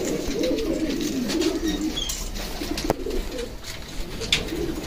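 Several homing pigeons in a loft cooing, their wavering low calls overlapping, with a single sharp click about three seconds in.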